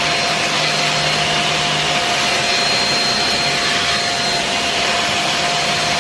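Dibea handheld bed vacuum cleaner running steadily: an even motor-and-airflow rush with a faint steady whine.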